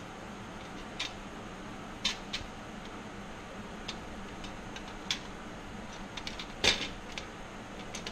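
Dual fuel pump assembly being handled: scattered light clicks and taps of its metal parts, the loudest a sharp knock about two-thirds of the way through, over a steady low hum.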